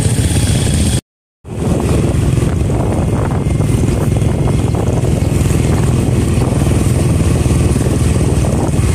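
Motorcycle running steadily while riding along a rough dirt road, heard from on the bike, a low steady engine hum mixed with road and wind noise. The sound cuts out completely for about half a second about a second in.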